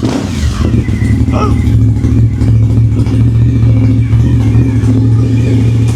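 Cagiva Raptor 1000's Suzuki-built 1000 cc V-twin idling steadily through aftermarket MIVV exhaust pipes, loud, with a deep, even burble. The engine cuts off at the very end.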